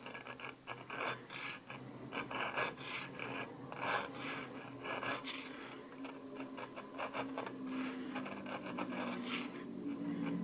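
Repeated hand rasping strokes of an abrasive on small steel pistol parts while a sight is fitted to its dovetail, irregular at roughly two strokes a second.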